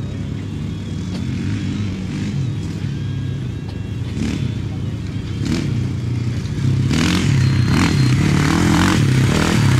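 Off-road racing dirt bike approaching on a rutted sand track, its engine getting louder from about seven seconds in, revs rising and falling as the rider works the throttle.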